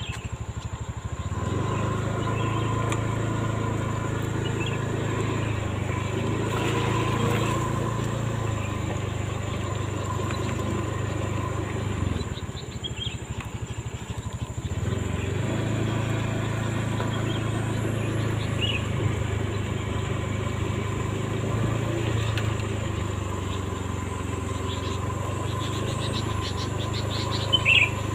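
Motorcycle engine running steadily while riding. It eases off about halfway through for a few seconds, then picks up again.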